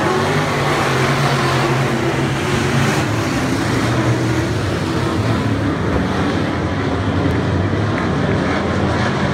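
Several dirt-track race cars' engines running together as the pack laps the oval, a dense steady drone whose pitch wavers up and down as the cars accelerate and lift through the turns.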